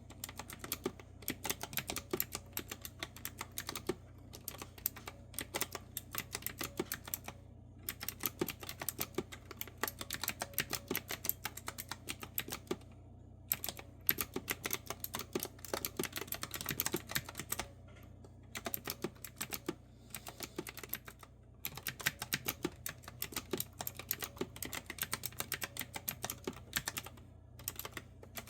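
Fast typing on a clicky retro-style keyboard with round keycaps: rapid, crisp keystrokes in runs of a few seconds, broken by brief pauses.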